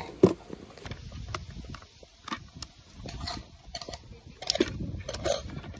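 Handling noises while a horse's feed is made up: carrots pulled from a plastic grooming tote and dropped with an apple into a rubber feed tub of pellets. Scattered short knocks and clicks over a low rustle, the loudest knock just after the start.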